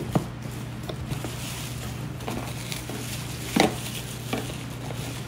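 Cardboard box and packing being handled: a few light knocks and clicks near the start, then rustling of packaging with a louder scuffling rustle about three and a half seconds in, over a steady low hum.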